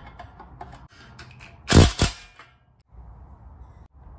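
Small metal clicks and knocks as the steel steering shaft, gear and quadrant are handled and fitted together, with two louder sharp clanks a quarter-second apart about two seconds in.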